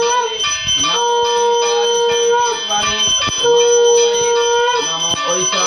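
Puja hand bell ringing continuously. A long steady held tone sounds three times over it, each time for more than a second.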